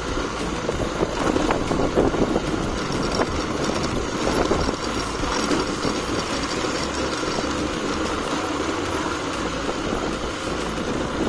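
Vehicle driving along a rough dirt street: steady engine and road noise, with a few light knocks and rattles during the first half.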